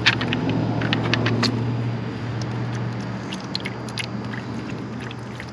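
Engine oil running in a stream from the sump drain hole of a Yamaha FJ-09 into a drain pan as the drain bolt comes out, with a few sharp metal clicks near the start. The flow sound is strongest at first and fades over the first few seconds.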